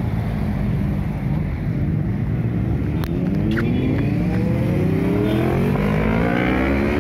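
Motorcycle engines accelerating away, the engine note rising steadily in pitch over the second half. Two short sharp clicks about three seconds in.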